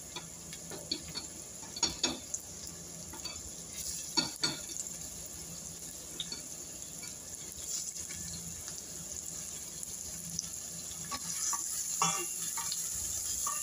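Diced red onion and garlic sizzling in hot oil in a stainless steel pan, a steady high hiss, with a few short knocks on the pan about 2, 4 and 12 seconds in.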